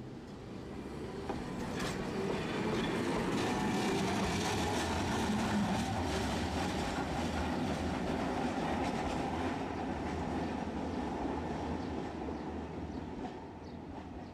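Tosaden streetcar rolling past on street-running track and away, its rail noise building to a peak in the middle and fading near the end.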